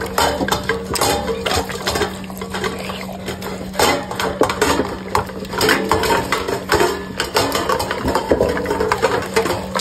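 Cane Corso licking and scraping the last of its food from a stainless steel bowl, with rapid irregular tongue licks and the metal bowl clanking and rattling in its stand, over a steady low hum.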